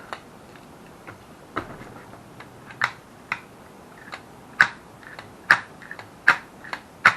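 Irregular sharp clicks and taps, about a dozen over several seconds and louder in the second half, from the freshly reassembled Holley two-barrel carburetor being handled and worked.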